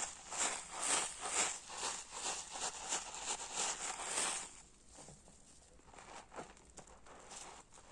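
A hard sponge full of soapy foam being squeezed over and over, about two wet squishes a second. The squeezing stops about four seconds in, leaving faint scattered crackling of the foam.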